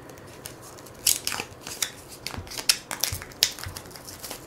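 Plastic shrink-wrap crinkling and tearing as it is pulled off a stack of cardboard punchboards by hand, a series of sharp crackles starting about a second in.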